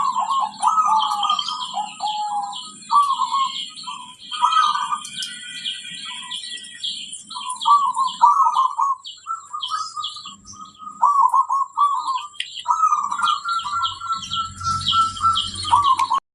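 Zebra doves (perkutut) cooing in repeated phrases of quick bending notes, with many shorter, higher chirps from other small birds over them.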